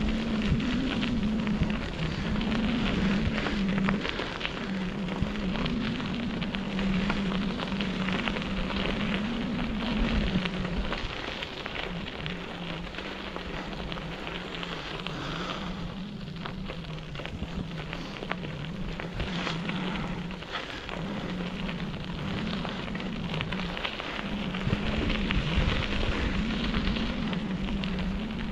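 Bicycle tyres rolling and crunching over a dirt and gravel trail, a steady crackling rumble with small knocks and a low hum that wavers in pitch.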